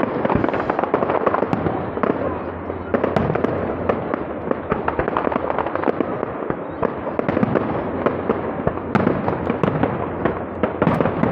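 Display fireworks going off: a dense, unbroken run of sharp cracks and bangs from shells bursting in quick succession, with a few louder ones about three and nine seconds in.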